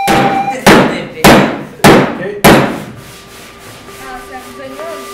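A hammer striking a steel hand tool held against a stripped car door's sheet metal: four hard blows about half a second apart, each ringing briefly, in the first three seconds.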